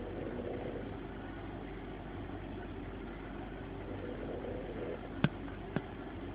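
A man snoring: a steady low drone that swells near the start and again about four seconds in, with his breathing. Two sharp clicks about half a second apart come near the end.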